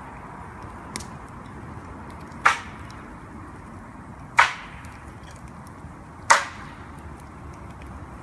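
Chopping strokes on wood: a light tap about a second in, then three sharp, evenly spaced strikes about two seconds apart.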